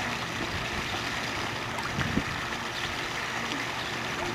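Steady swish of swimming-pool water with light splashing from a toddler paddling, and one short sharp splash or knock about two seconds in.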